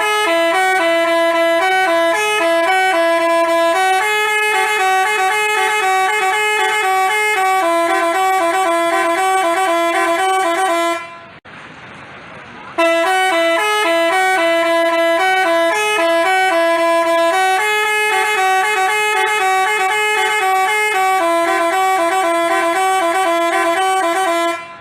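Telolet 'basuri' musical bus horn playing a tune of stepping horn notes. The tune stops about eleven seconds in, and after a short pause the same tune plays again.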